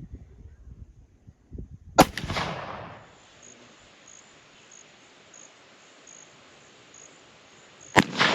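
Two rifle shots about six seconds apart, each a sharp crack followed by an echo that fades over about a second.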